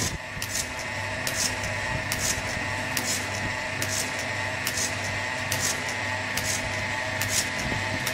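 Portable bucket milking machine running: the electric vacuum pump hums steadily while the pulsator on the bucket lid hisses in a regular rhythm, a little faster than once a second.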